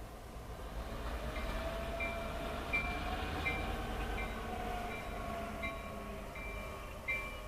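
A pair of Norfolk Southern diesel locomotives running light, with a steady low rumble and an engine tone that rises and falls as they pass. From about a second in, a railroad bell rings about once every 0.7 seconds.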